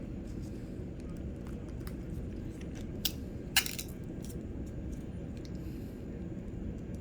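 Light kitchen handling noises: scattered soft clicks and two sharp clicks or clinks about three and three and a half seconds in, the second the loudest, over a steady low hum.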